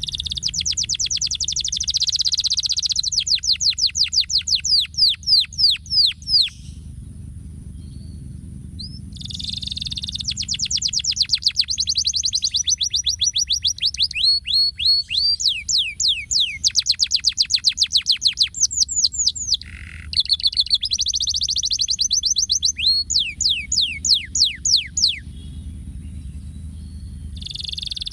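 Domestic canary singing: long phrases of fast rolling trills and runs of quick downward-sweeping notes, with a pause about six seconds in and another near the end, over a steady low hum.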